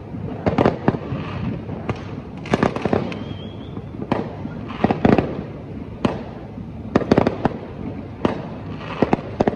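Many fireworks going off across the area: a continuous rumble of distant bangs, with clusters of louder, sharp bangs and crackles every second or two.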